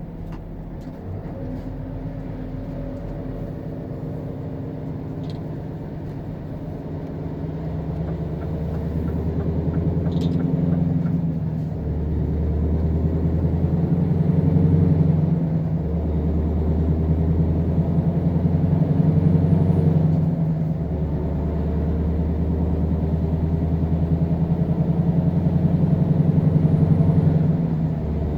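Scania R520 V8 truck's 16-litre V8 diesel pulling a heavy load. Its revs climb steadily in each gear and drop briefly at each upshift, about every four to six seconds in the second half.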